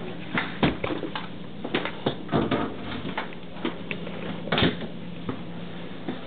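Irregular clicks and knocks of a door being handled and opened by its knob, the loudest a little after half a second in and about four and a half seconds in, over a steady low hum.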